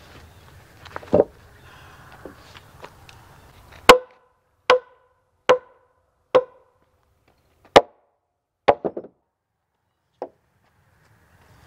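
A hammer striking about eight sharp blows, roughly a second apart, each with a short ring; the first blow is the loudest.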